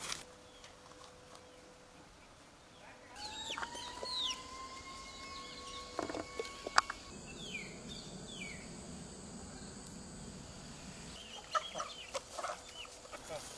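Chickens clucking and calling, starting about three seconds in, with one long drawn-out call soon after.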